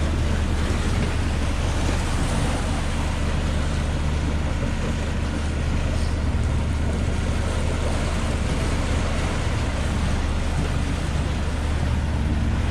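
A sailboat's engine running steadily at cruising speed as the boat motors under way, a constant low hum with a rush of wind and sea water over it.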